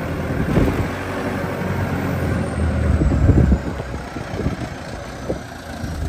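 Heavy diesel machinery engine running steadily. It grows louder until about three and a half seconds in, then drops back abruptly, with a few short knocks.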